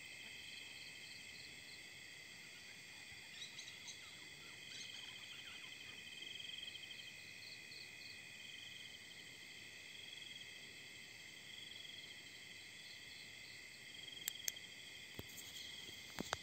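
Crickets and other night insects trilling steadily, several high-pitched chirring bands layered together. A few sharp clicks sound near the end.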